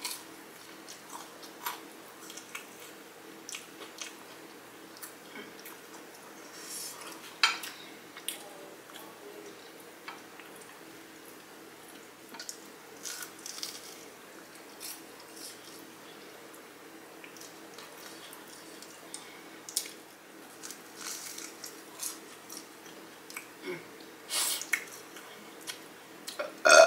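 Close-up crunching and chewing of fried pickles with a crunchy Flamin' Hot Cheetos coating: irregular crisp crackles as bites are taken and chewed, with a faint steady hum underneath.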